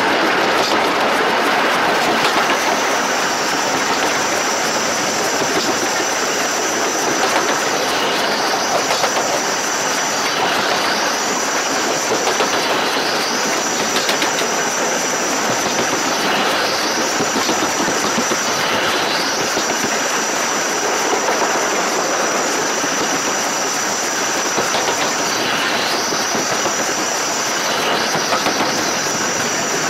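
Steam locomotive running, heard close up beside its driving wheels and rods: a steady dense clatter of wheels and running gear on the rails, with a thin high whine that dips away and comes back every few seconds.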